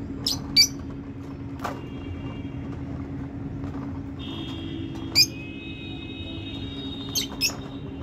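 Caged lovebirds giving short, shrill calls, six in all: two in quick succession at the start, one more about a second later, a loud single call about five seconds in, and another quick pair near the end. A steady low hum runs beneath them.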